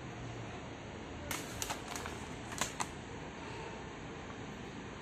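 A handful of sharp light clicks, about six within a second and a half, from small objects being handled, over a steady background hiss.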